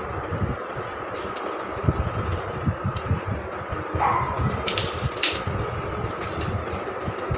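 A cloth rubbing over a stainless steel range-hood baffle filter on a countertop, with irregular handling thumps and a few sharp metal clicks about four to five seconds in as the filter is shifted and turned. A steady hum runs underneath.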